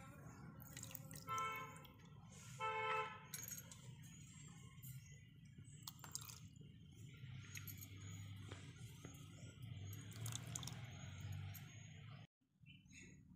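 Hand splashing through a steel bowl of water full of small live fish, with scattered light splashes and clicks. Twice early on, about a second and a half apart, a short horn-like toot stands out as the loudest sound.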